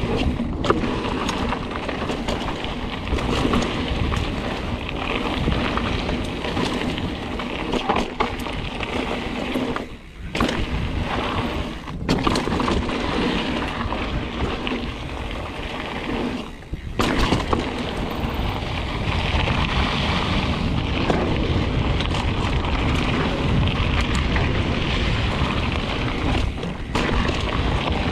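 Mountain bike ridden fast down a dry dirt and rock trail: tyres rumbling and crunching over dirt and loose stones, with the bike's chain and frame rattling and clicking over the bumps. The noise drops out briefly twice, about ten and seventeen seconds in.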